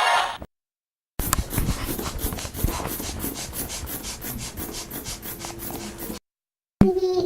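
Rhythmic rasping or rubbing strokes, about four a second, starting about a second in and lasting about five seconds. A short pitched sound follows near the end.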